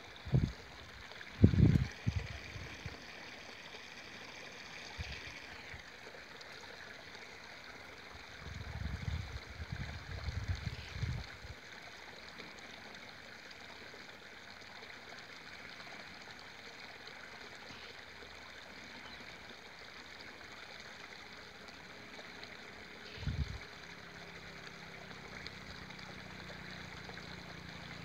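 Steady outdoor background hiss with several short, low, muffled thumps on the microphone: two near the start, a cluster from about eight to eleven seconds in, and one more a few seconds before the end.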